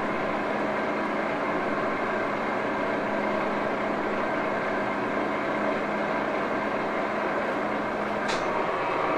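Vintage 1941 Axelson gear-head engine lathe running steadily, its geared headstock giving a continuous mechanical drone with a held low hum. A brief high-pitched squeak comes about eight seconds in.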